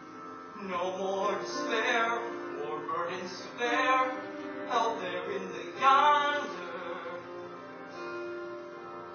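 A man singing a slow, sustained ballad line over a soft instrumental accompaniment. The voice comes in about a second in and stops a little past the middle, leaving only the held accompaniment.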